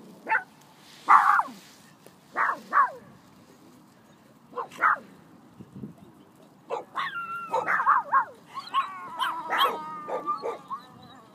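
Small phalène dog barking in short, high-pitched single barks, then, about seven seconds in, a rapid run of overlapping yaps and whining cries.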